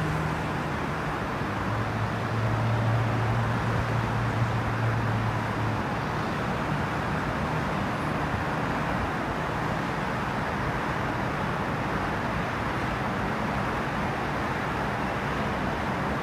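Steady city traffic noise, with a low engine-like hum for a few seconds near the start.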